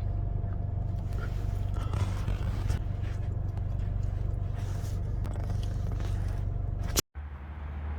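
Steady low rumble of a car driving, heard from inside the cabin. It breaks off briefly about seven seconds in and picks up again a little quieter.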